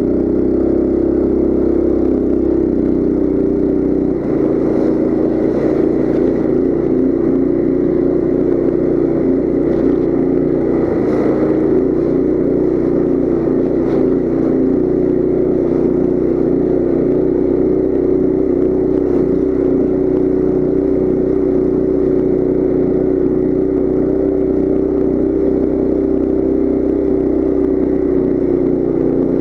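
Coleman CT200U mini bike's small single-cylinder four-stroke engine running at a steady pitch under throttle as the bike rides over snow.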